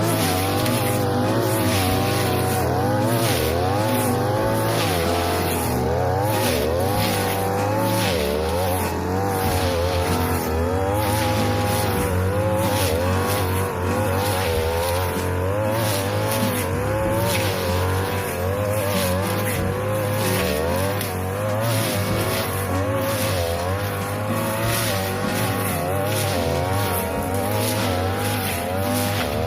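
A 42cc brush cutter engine running hard with a blade fitted, its pitch rising and falling continuously as the blade works through tall grass.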